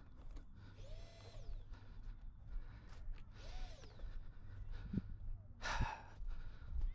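Electric motor of a 3D-printed RC plane giving short throttle blips, each a whine that rises and falls, about a second in and again a few seconds later, then a louder burst near the end, over a low rumble of wind on the microphone.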